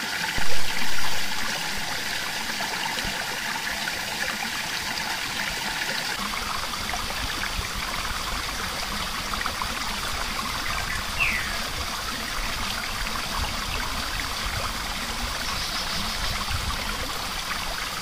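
River water flowing and trickling steadily over rocks. There are two short, louder bumps just under a second in, and a brief falling chirp a little past the middle.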